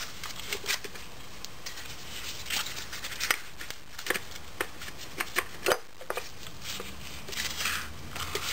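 Light, irregular metallic clicks and scrapes from a 4L80E automatic transmission's clutch housing and splined steel drum as they are lifted out of the case and handled in gloved hands.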